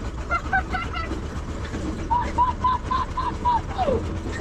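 Three-wheeler's diesel engine running with a steady low rumble. Over it, a run of short, evenly spaced high-pitched tones sounds near the middle and ends in a falling note.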